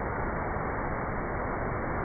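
Steady rush of a waterfall: falling water making an even, unbroken noise.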